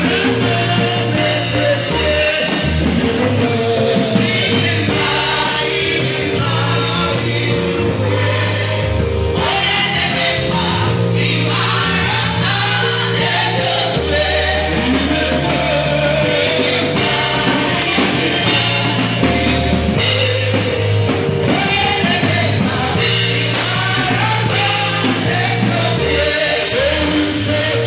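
A gospel choir singing with band accompaniment, a steady bass line moving under the voices.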